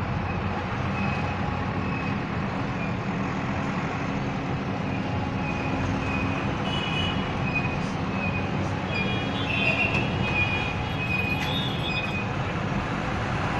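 Heavy diesel engine of earthmoving equipment running steadily, with a few short high-pitched tones coming and going over it.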